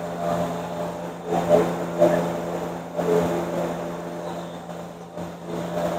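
Used engine oil pouring out of the open drain hole of a Ford Explorer ST's oil pan into a catch pan, over a steady low machine hum, with a few faint knocks.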